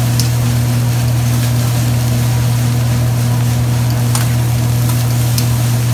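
A steady low machine hum, the hibachi griddle's exhaust ventilation running, with a few faint clicks of a metal spatula on the steel griddle as fried rice is stirred.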